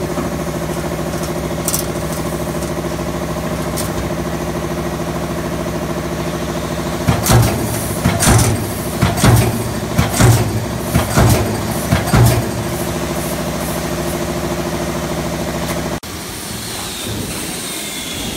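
Hydraulic CNC turret punch press: a steady machine hum, with a quick run of about ten punching strokes in the middle. The hum drops away abruptly near the end.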